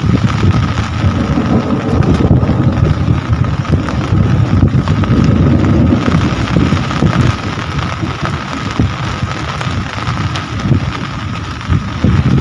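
Heavy rain falling steadily, under a loud, uneven low rumble, with a faint thin steady whine running through it.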